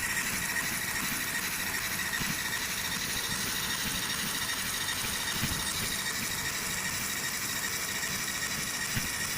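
Fiber laser marking machine engraving a bird ring: a steady, even high hiss with a faint whine held through it.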